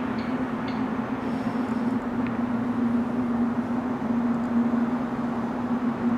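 Unexplained steady low drone: one constant humming tone, wavering slightly, over a wide rushing background noise, with a few faint ticks.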